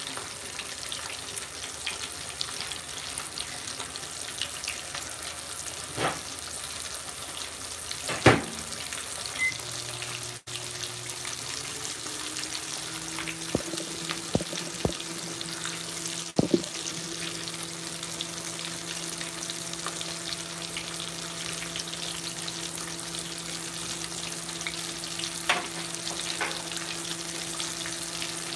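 Battered catfish fillets deep-frying in a pot of hot oil, a steady sizzle with a few sharp knocks. A steady low hum comes in about twelve seconds in.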